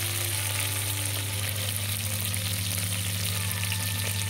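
Ghee sizzling steadily in an aluminium pot as mint and pandan leaves fry in it, with a steady low hum underneath.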